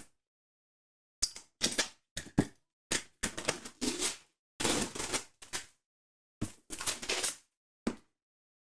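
Plastic shrink-wrap being torn and peeled off a cardboard box: a string of short, irregular crinkling rips with brief gaps, stopping near the end.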